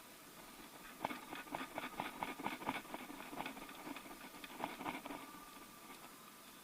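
Hand ratchet clicking in quick, irregular runs as bolts are tightened with light force, starting about a second in and easing off near the end.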